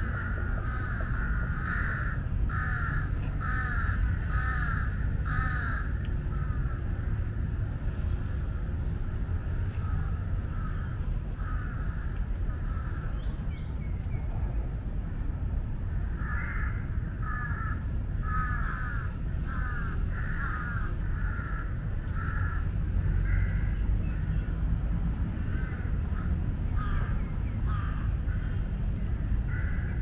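Jungle crows (large-billed crows) cawing over and over in runs: the parent birds' alarm calls at a predator eating their fledgling. A steady low rumble runs underneath.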